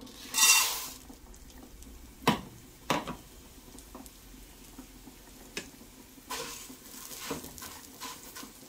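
Raw rice poured into a nonstick pot with a little oil, a short rush of grains hitting the pan in the first second. Then a few knocks of a spoon on the pot and the rice being stirred and scraped around in the oil.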